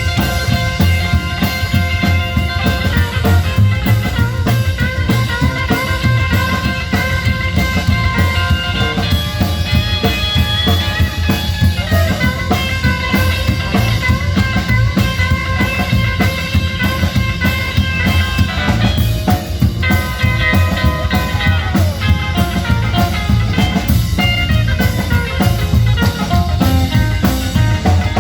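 Rock band playing an instrumental break: drum kit and bass under a lead guitar line of held notes, some of them bent.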